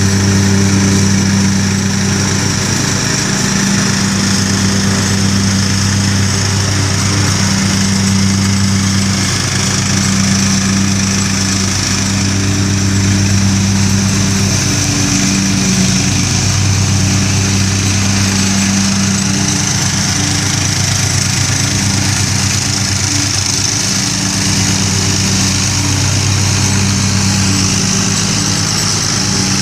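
Craftsman riding lawn mower's engine running steadily under load while mowing tall grass, its hum rising and falling a little as it goes.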